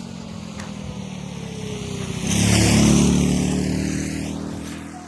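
A motor vehicle's engine passing close by: it grows louder, is loudest between two and three seconds in, then fades away.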